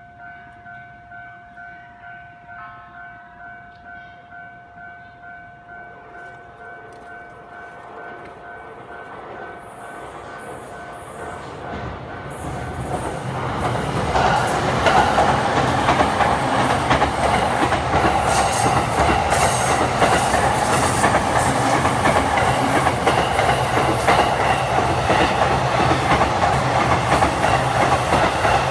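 Japanese level-crossing warning bell ringing in a steady repeating pattern. From about eight seconds in, JR commuter electric trains grow louder as they approach. From about fourteen seconds they pass close by, their rumble and wheel clatter over the rail joints drowning out the bell.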